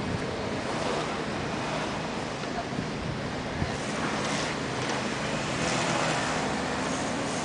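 Steady outdoor street noise: a continuous wash of road traffic with wind on the microphone, no single sound standing out.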